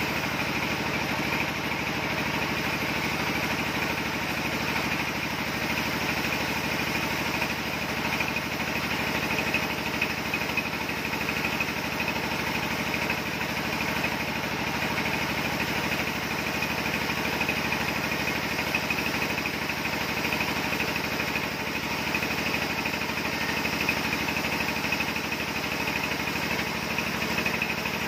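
Sawmill band saw running steadily with an even mechanical drone as it saws a slab off a log of red-hearted wood.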